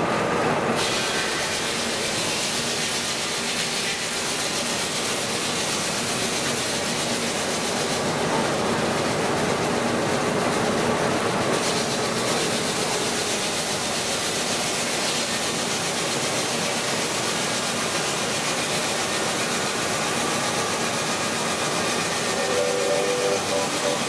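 Vintage sawmill running, belt-driven from a Burrell steam traction engine, with a steady, unbroken mechanical din from the mill machinery.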